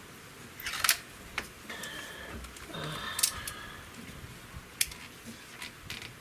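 Hatsan 125 Sniper breakbarrel air rifle being loaded and closed: a series of sharp metallic clicks and knocks with brief ringing. The loudest come about a second in and around three seconds in, then lighter ticks as the rifle is settled on its bipod.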